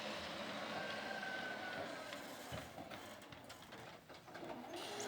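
Electric swing-gate operator running faintly: a low mechanical hum with a thin whine and a few clicks.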